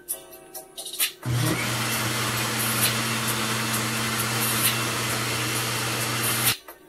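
Black+Decker countertop blender switched on about a second in, its motor running at a steady speed as it churns a thick smoothie, then cut off suddenly near the end.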